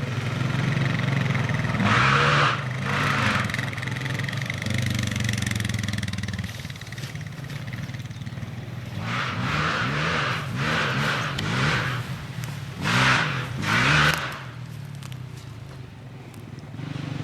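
Off-road motorcycle engines revving up and easing off in repeated bursts of throttle, over a steady engine drone.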